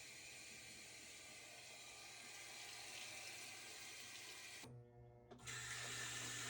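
Whirlpool/Maytag top-load washer running: a faint steady hiss over a low hum, which drops out briefly about five seconds in. The washer is stuck in spin and cannot agitate.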